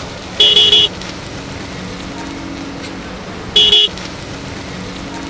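Car horn honking twice: a half-second beep about half a second in and a shorter one near the four-second mark, over the steady low hum of a car engine.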